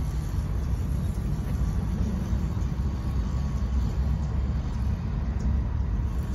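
Steady low rumble with the faint, even whine of a WPL C34 RC crawler's small electric motor and gearbox as it crawls over pine straw.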